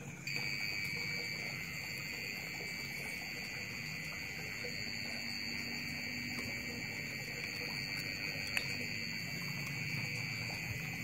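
A steady, high-pitched electronic buzzer tone that switches on abruptly just after the start and holds without a break, with a faint tick near the end.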